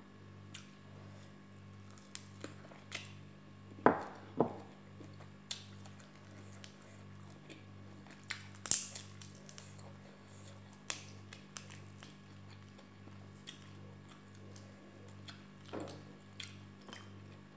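Cooked prawn shells being cracked and peeled by hand, with scattered clicks and crackles, a couple of sharper cracks about four seconds in and another near nine seconds, and some chewing. A low, evenly pulsing hum runs underneath.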